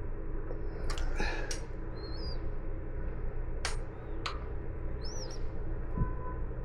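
A bird chirping, two short high whistled calls that rise and fall, over a steady low background noise. Several sharp clicks come in between.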